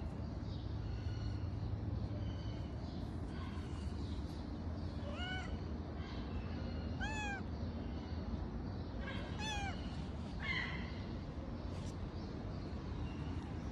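A cat meowing several times, about two seconds apart, starting about five seconds in. Each meow rises and then falls in pitch.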